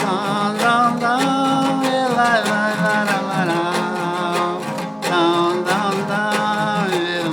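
Singing of a traditional toada, with long held, wavering notes, over a viola de cocho strummed in a steady beat.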